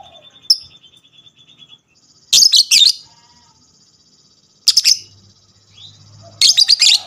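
A lovebird giving its 'ngekek' song: three loud bursts of shrill, rapid chattering a couple of seconds apart, over a fine, fast, high-pitched trill, with a single short chirp near the start.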